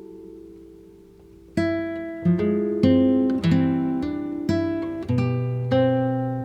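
Background music on acoustic guitar: a chord rings out and fades, then about one and a half seconds in a run of strummed or plucked chords begins, one every half second or so.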